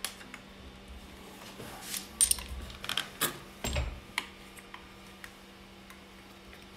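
Clicks and metallic clunks of a machined-aluminium 2x72 belt grinder being unlocked with its lever handle and swung from flat into the upright position, the loudest knocks and a heavier thunk between about two and four seconds in.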